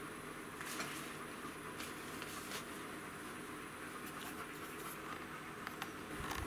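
Freshly lit wood fire of split wood and wood pellets in a CANWAY stainless wood stove, crackling faintly: scattered sharp ticks over a soft steady hiss. A few low knocks near the end.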